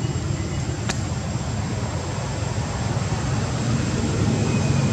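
Steady low outdoor rumble with a faint, thin high-pitched whine held throughout, and a single sharp click about a second in.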